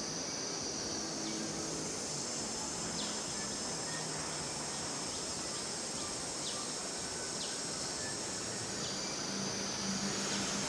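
Steady, high-pitched drone of insects, with short falling chirps every second or two and a faint low hum underneath.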